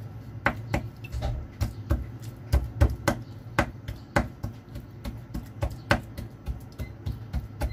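A kitchen utensil tapping sharply against a dish over and over, about three to four taps a second, over a steady low hum.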